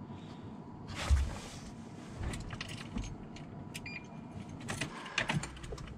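A bunch of car keys jangling, with scattered light clicks and a low knock about a second in, as the keys are handled.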